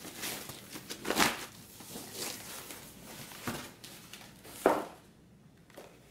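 Styrofoam packing and plastic wrap being handled as a foam tray is lifted out of a monitor box: about five separate scraping, crinkling rustles roughly a second apart, the loudest near the end.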